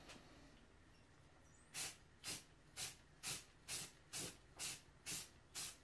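Aerosol spray-paint can sprayed in quick short bursts, about two a second, starting a couple of seconds in.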